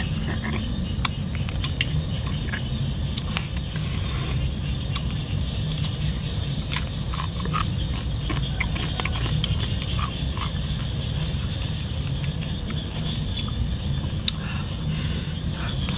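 Grilled crab shells being cracked and pulled apart by hand and chewed, making many small scattered clicks and cracks, over a steady low rumble.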